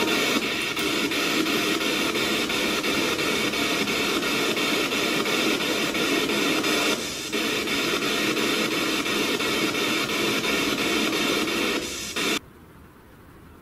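Spirit box sweeping radio frequencies: a steady hiss of radio static that cuts off suddenly near the end.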